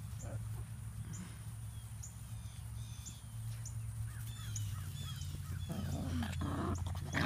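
A bird chirping repeatedly outdoors, short high chirps about twice a second. Near the end, puppies scuffle and wrestle in the grass.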